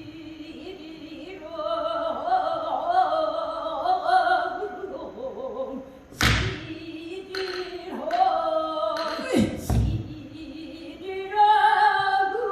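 Pansori singing accompanied by the buk barrel drum: a solo voice with wavering, sliding pitch, and deep drum strokes about 6 seconds and about 10 seconds in.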